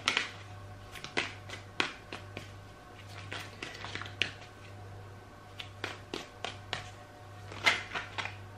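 Tarot deck being shuffled by hand: irregular soft slaps and clicks of cards against one another, over a steady low hum.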